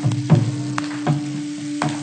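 Rock band playing live, an instrumental passage: drum and cymbal hits about every half second over a held note and low bass, with a steady hiss across the recording.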